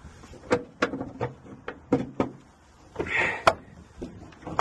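A car bonnet being closed: a series of sharp clicks and knocks, a short rustle about three seconds in, and a final knock at the end.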